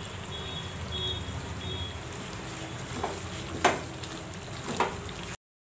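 Chicken and masala frying in an aluminium kadai with a steady sizzling hiss, and a spatula knocking against the pan three times while stirring, a few seconds in. The sound cuts off abruptly near the end.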